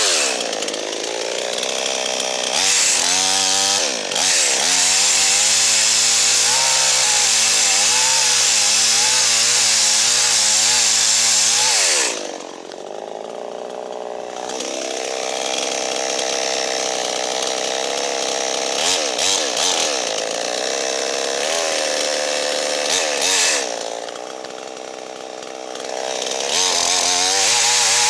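Gas chainsaw running at full throttle, cutting into dead standing ash, its pitch wavering as it bogs and recovers under load. It drops back to idle twice, about twelve seconds in and again near twenty-four seconds, then revs back up.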